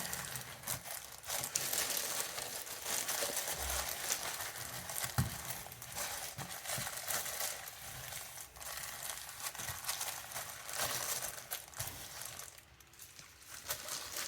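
Scrubbing and wiping around a bathroom sink's drain opening: a steady scratchy rustle with small clicks that lets up briefly near the end.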